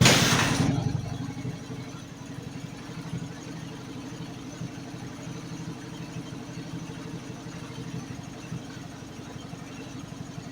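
Motorcycle engine with a Yoshimura Trioval exhaust starting from cold, loud at first and settling within about two seconds into a steady idle.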